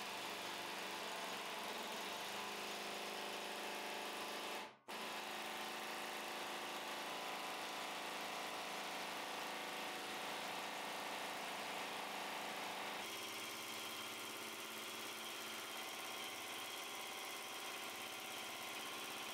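Compressed-air shop equipment running steadily during a run-time test of a 3/8-inch air impact on an oil-free air compressor. The sound drops out sharply for a moment about five seconds in and changes tone about thirteen seconds in.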